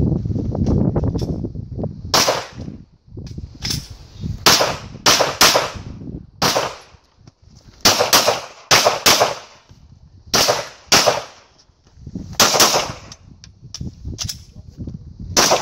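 9mm pistol shots from a Glock 34, fired mostly in quick pairs with gaps of a second or so between them, each shot leaving a short echo. The first shot comes about two seconds in.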